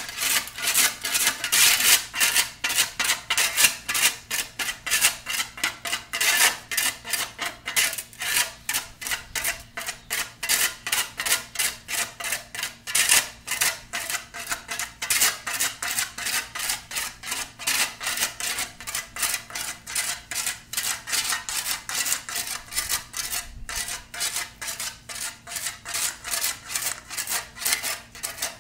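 Flat steel shovel used as a lawn edger, its blade scraping along the edge of a concrete driveway in quick repeated strokes, about three a second, cutting back grass at the concrete's edge.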